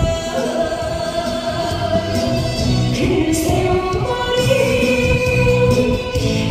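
A woman singing a trot song into a handheld microphone with musical accompaniment, holding one long note, then after a short phrase a second long, lower note.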